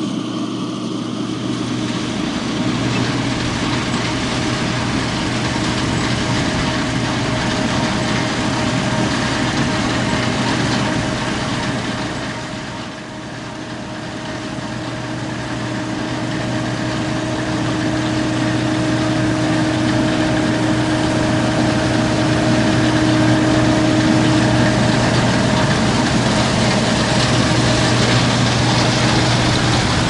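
Combine harvester running steadily while harvesting: a continuous engine and machinery hum with a few held tones, dipping briefly about halfway through.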